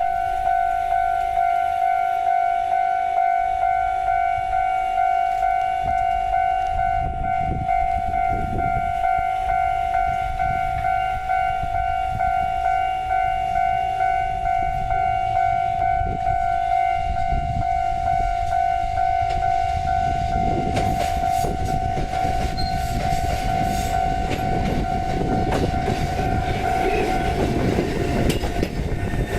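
Japanese level-crossing alarm ringing, a steady pulsing electronic ding. From about 20 seconds in, the rumble of a four-car Kotoden 1070 series electric train grows louder as it comes in, with wheels clicking over the rail joints.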